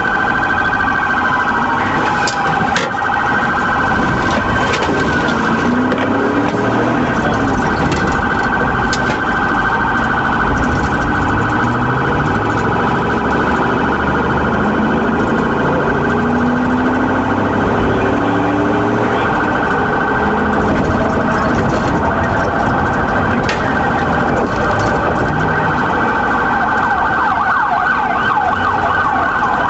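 Police car siren sounding continuously over engine and road noise, heard from inside a patrol car.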